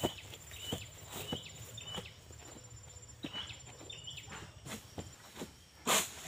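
Crackling and rustling of leaves and undergrowth, like footsteps moving through ground cover, with a run of short high chirps in the first half. One louder brushing burst comes near the end.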